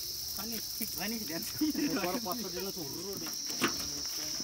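Steady high-pitched drone of insects, with people talking in the background and a single sharp click near the end.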